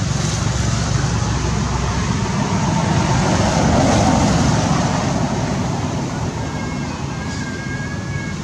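Steady outdoor background rumble that swells about halfway through and then eases. Faint thin high tones come in near the end.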